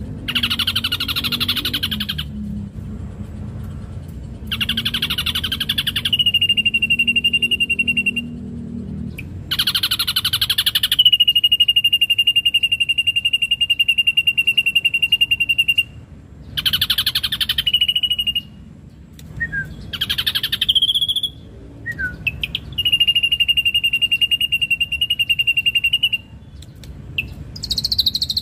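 Ashy drongo singing: repeated phrases of harsh, rasping chatter, each running into a long, steady, high whistle held for several seconds.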